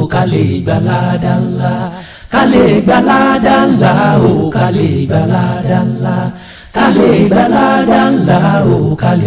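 Unaccompanied voices chanting or singing in three phrases, each a few seconds long, with short breaks between them.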